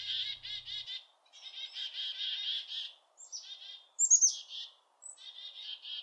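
Small birds chirping: bouts of rapid, high-pitched note trains with short gaps between them, and a few sharp down-slurred notes about four seconds in.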